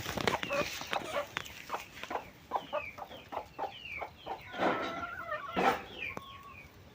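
Live chickens clucking, a steady run of short clucks and brief high chirps.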